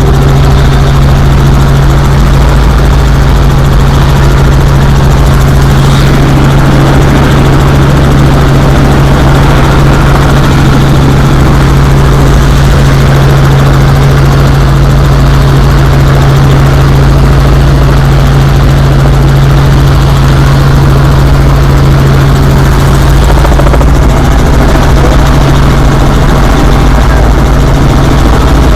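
Helicopter running steadily: a loud, constant drone of engine and rotor with a steady low hum.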